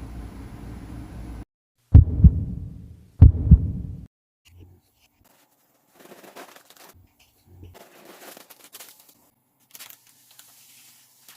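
A low, steady rumbling growl like a stomach rumble that cuts off after about a second and a half. Then come two heavy double thumps about a second apart, like heartbeats. Faint rustling and small clicks follow.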